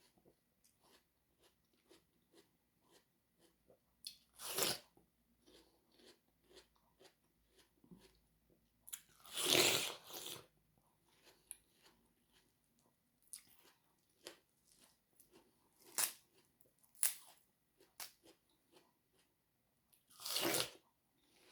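Someone biting into and chewing watermelon close to the microphone: soft, steady chewing clicks broken by about five louder, juicy crunching bites, the loudest and longest a little before halfway.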